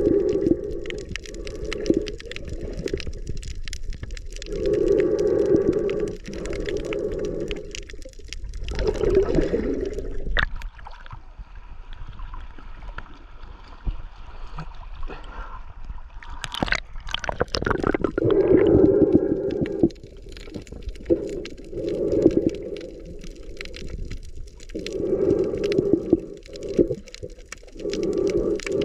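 Muffled underwater sound of a snorkeler breathing through a snorkel, in rhythmic bursts a second or two long, with water sloshing around the camera. In the middle the camera breaks the surface: the breathing gives way to a thinner hiss of lapping water, and a splash comes as it goes back under.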